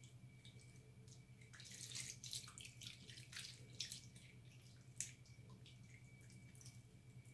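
Hands squeezing and rubbing a wet ball of recycled soap in a sink of water: faint wet squishing, dripping and small splashes, busiest in the middle few seconds, with one sharper splash about five seconds in.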